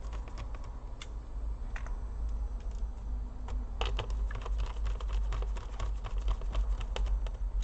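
Light, irregular clicks and taps of a small screwdriver and screws on a laptop's plastic case as the screws are driven back in, over a steady low hum.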